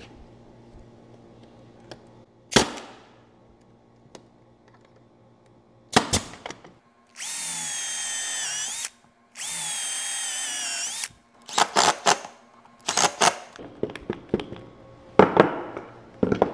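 A pneumatic 18-gauge brad nailer fires twice, about two and a half and six seconds in, each a single sharp shot. Then a cordless drill with a countersink bit runs in two short bursts of under two seconds each, boring screw holes in wood, followed by several knocks and clatter of wood and tools on the bench.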